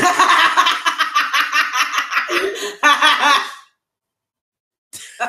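Two teenage boys laughing hard together, a long run of quick repeated laughs that cuts off abruptly after about three and a half seconds.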